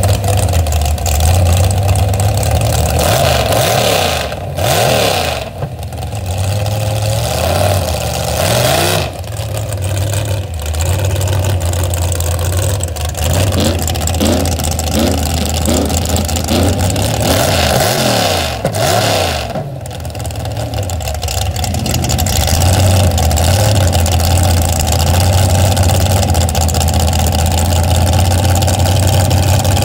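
Open-stack-exhaust engine of a lifted Chevrolet S10 dirt-drag truck, idling loud and being revved up and down several times: once about four seconds in, again around eight to nine seconds, and in a string of quick blips in the middle. It then settles back into a steady idle.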